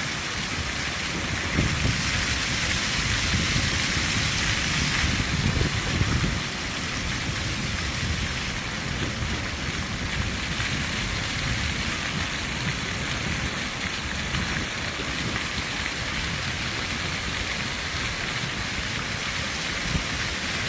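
Rain falling steadily, a little heavier for the first six seconds or so, over a low rumble.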